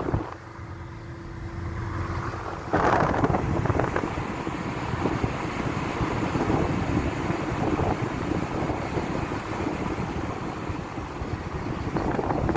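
Car driving, with steady road and wind noise; the noise gets suddenly louder about three seconds in.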